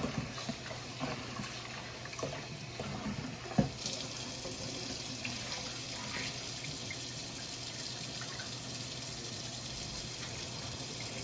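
Kitchen tap running water into a pot of rice being rinsed to wash out the starch. A few light knocks and clatter come first, one sharper, then about four seconds in a steady stream of running water starts.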